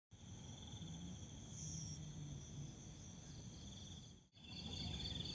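Insects trilling steadily in high, continuous bands over a faint low rumble. The sound cuts out for an instant about four seconds in, then resumes.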